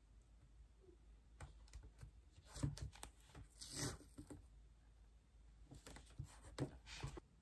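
Washi tape being laid along a paper notebook page and pressed down by fingers: soft taps and paper rustles, with a brief rasp from the tape about four seconds in.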